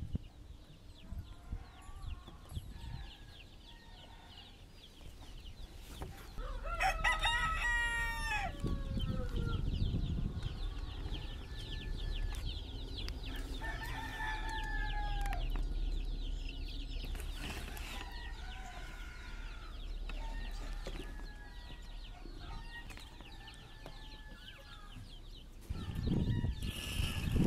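A rooster crows once about seven seconds in, a long call that drops in pitch at the end. Shorter farmyard fowl calls follow later, over a low rumble.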